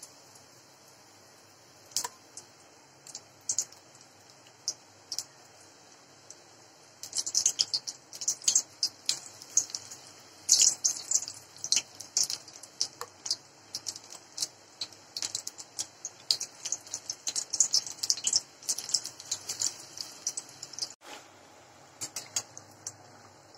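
Besan-battered capsicum rings deep-frying in hot refined oil in a steel kadai: the batter crackling and popping, with scattered pops at first, then dense rapid crackling from about a third of the way in, thinning out near the end.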